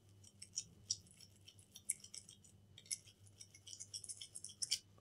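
Faint hand cleaning on a laptop motherboard: an irregular run of crisp, high-pitched scratching and ticking as a small tool scrubs the board, with the sharpest ticks about two seconds in and near the end.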